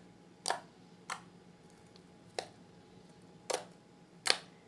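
Homemade slime being pressed and squeezed in the hands to make it click: five sharp clicks at irregular intervals of about a second.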